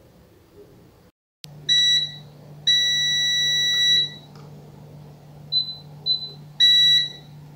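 Digital multimeter's beeper sounding in short and long steady-pitched beeps as its probes touch points on a laptop motherboard during a test for a short circuit. There is a short beep, then a longer one of about a second and a half, two faint chirps, and a final short beep.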